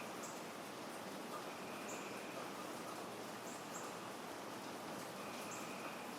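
Steady rain falling as an even hiss, with faint, short, high-pitched chirps every second or two.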